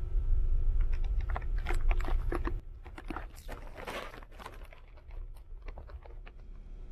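Low rumble of a ferry's engines heard inside a cabin bunk, with a run of small clicks and rustles of handling and bedding; the rumble drops sharply about two and a half seconds in.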